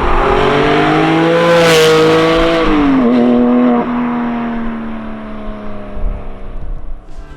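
Porsche 718 Cayman GT4's 4.0-litre flat-six, with Akrapovic OPF link pipes and the stock muffler, driving past: the engine note rises to its loudest about two seconds in, drops in pitch about a second later, then fades as the car moves away.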